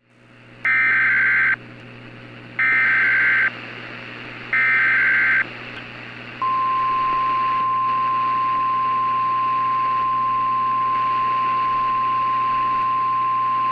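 Emergency Alert System opening: three identical screeching digital header bursts about a second apart, then a single steady attention tone that starts about halfway through and holds, over a faint hum and hiss.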